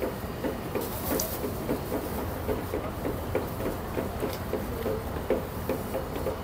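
Roll heat-transfer press running as fabric is fed through, its roller drive making a rapid, even clicking of about five clicks a second over a low hum.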